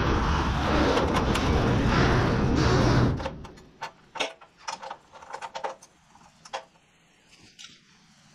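A loud, steady motor sound that stops abruptly about three seconds in, followed by scattered light clicks and taps.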